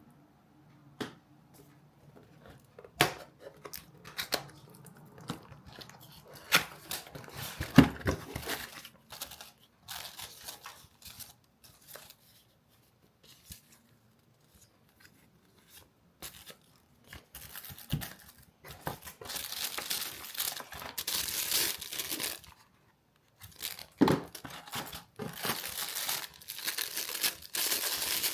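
Handling noises: scattered sharp clicks and knocks, then two longer stretches of rustling, crinkling noise like tearing or crumpling material, the first about two-thirds of the way through and the second near the end.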